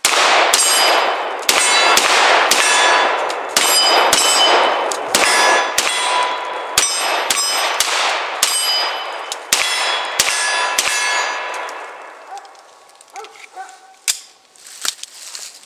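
CZ 75 P01 9mm compact pistol firing rapid strings of shots, about seventeen in the first eleven seconds, each shot followed by a metallic ringing. The shooting stops about eleven seconds in, leaving only a few small clicks.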